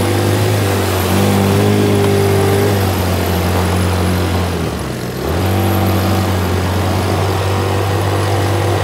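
150cc automatic ATV engine running under throttle on the trail, easing off briefly about five seconds in and then picking up again.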